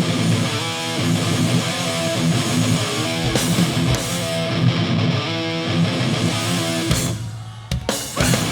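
Hardcore punk band playing live, with distorted electric guitars, bass and drums. Near the end the band drops out for about a second, then crashes back in.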